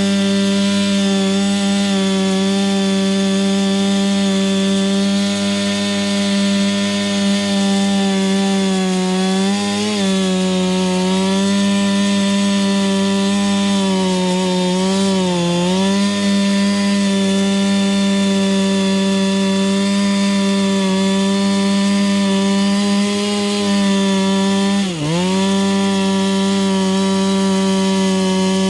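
Chainsaw running near full throttle as it cuts through firewood, a steady high engine note whose pitch sags briefly three times as the chain bogs under load in the wood.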